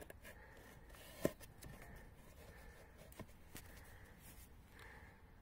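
Faint handling noise: scattered small clicks and rustles of a hand moving around the camera and the suspension parts, with one sharper click a little over a second in.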